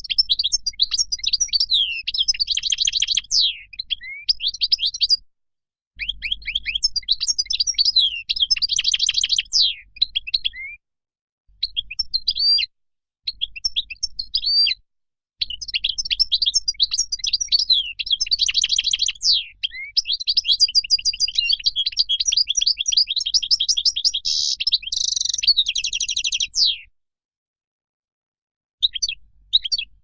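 European goldfinch singing its wild-type song: long phrases of rapid twittering, liquid notes and buzzy trills. The song comes in several bouts separated by short silences, and the longest bout, in the second half, ends in a harsh buzzy stretch and a falling sweep.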